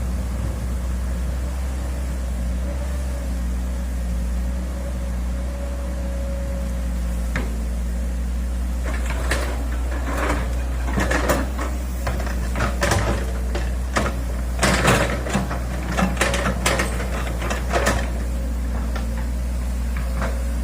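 Hitachi excavator's diesel engine running steadily, with a string of sharp knocks and clatters from a little before halfway to near the end.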